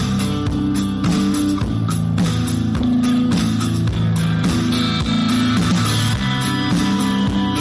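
Background music with sustained notes over a steady beat.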